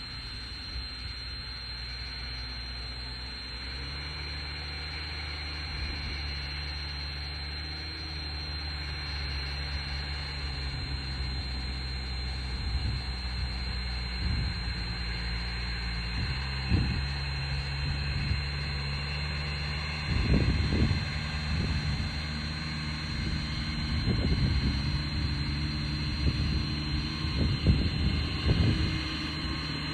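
Landini Mythos tractor's diesel engine running steadily, its pitch stepping up slightly a few seconds in and again about halfway. Irregular louder bursts come in over the last third.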